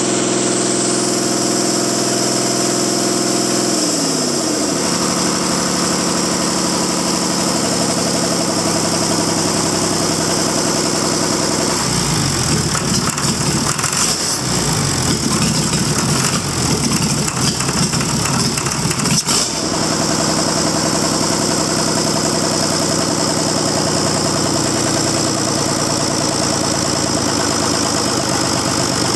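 Caterpillar 3046 six-cylinder diesel engine running on a test stand. It runs steadily, slows to a lower speed about four seconds in, turns rough and uneven for several seconds in the middle, then settles back to a steady run.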